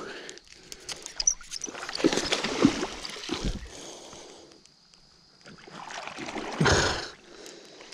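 Water splashing and sloshing in irregular bursts, with a louder rush near the end.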